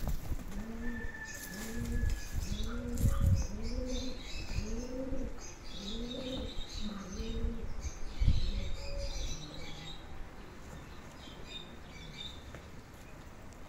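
A bird cooing: a steady series of about ten low, rising-and-falling coos roughly 0.7 s apart, fading out near the end. Small birds chirp higher up, with a couple of low thumps.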